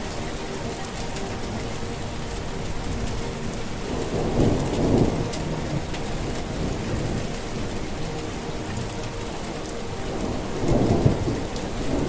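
Steady rain falling, a continuous even hiss. Two deep rumbles swell up over it, about four seconds in and again near the end.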